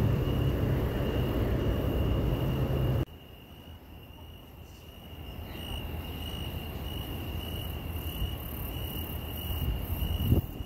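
Crickets chirping in a steady, high-pitched trill. Under it a low rumble, loud for the first three seconds, then cut off abruptly and swelling again toward the end.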